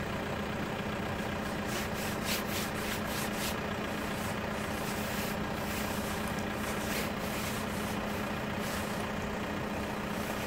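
A vehicle's engine idling steadily, with a few brief hisses about two to three seconds in.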